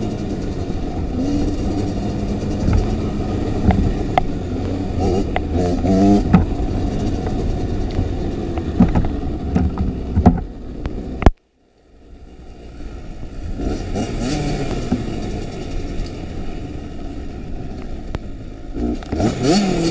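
Kawasaki KX85's single-cylinder two-stroke engine running under load and revving up and down, with scattered knocks from the bike over rough ground. About eleven seconds in there is a sharp crack, then the sound cuts out for about half a second before the engine comes back.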